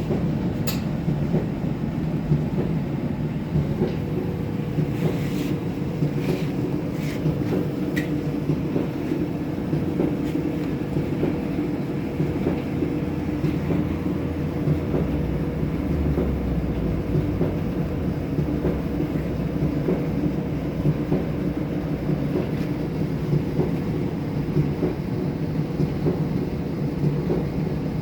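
Kenmore 70 series clothes dryer running, its drum giving a steady low rumble with a thumping noise and a constant hum, plus a few sharp ticks in the first several seconds. The owner suspects a bad drum or bad drum support rollers.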